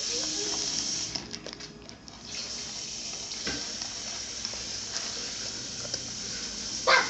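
Kitchen sink tap running, a steady hiss of water. The flow breaks off briefly about a second in, then carries on more quietly. There is a short loud knock near the end.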